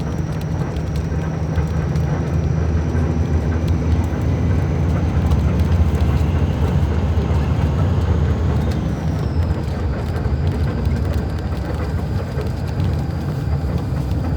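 Diesel engine of a Mascarello Roma M4 bus on an Iveco chassis running, a steady low drone that swells a little about halfway through, with a faint high whine that drops slightly in pitch later on.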